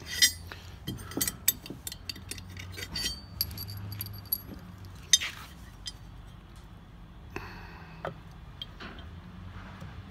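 Scattered light metal clicks, clinks and knocks as the metal housing cover is handled and set down over a Gast rotary vane air pump, with one sharp clink about five seconds in; the clicks thin out in the second half.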